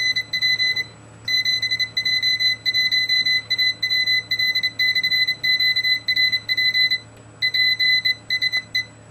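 PicoKeyer sidetone buzzer beeping Morse code at about 2 kHz: the keyer is playing back a stored CQ QRP call, with dots and dashes and longer gaps between words about a second in and about seven seconds in.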